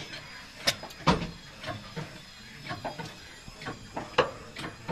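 Irregular sharp knocks and clanks, typical of work going on in a workshop, with a few louder strikes about a second in and one near the end.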